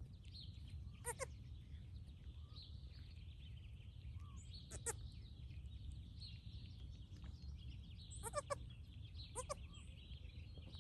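A newborn goat kid gives several short, high, quavering bleats: a double one about a second in, one midway and a few near the end. Steady bird chirping and a low wind rumble sit underneath.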